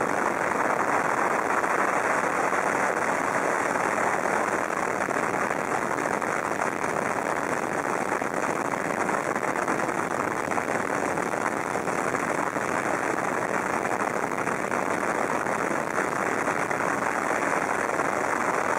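Steady drone of a helicopter's engine and rotors, an even rushing noise that holds at one level throughout.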